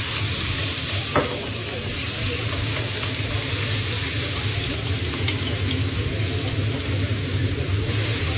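Shrimp sizzling in hot oil in a pan and being stirred, over a steady low hum. A single sharp clink about a second in, and a few light ticks later on.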